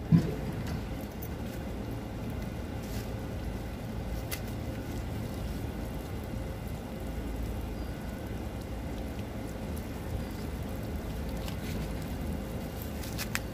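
Steady low rumble of distant road traffic, with a short sharp sound right at the start and a few faint clicks.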